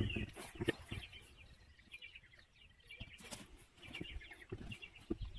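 Small birds chirping, with a few faint knocks and handling noises in the first second.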